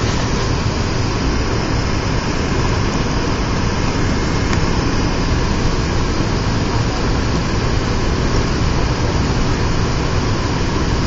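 Steady jet-airliner cabin noise, a loud even rush of engine and airflow heard from inside the cabin during the night descent to landing.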